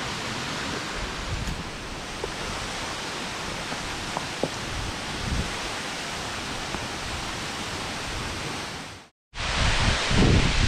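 Steady rushing hiss of waterfalls spilling into a river. After a sudden cut about nine seconds in, louder low gusts of wind buffet the microphone.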